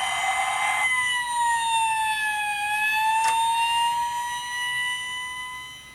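Electronic siren from a Driven by Battat toy fire truck's sound module: a wailing tone that slides slowly down and back up again, fading out near the end. A single light click sounds about three seconds in.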